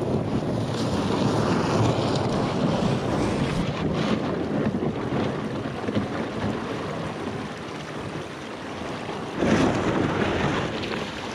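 Small rowboat's hull scraping and grinding over beach pebbles as it is dragged down to the water, with wind buffeting the microphone. A louder rush comes about nine and a half seconds in.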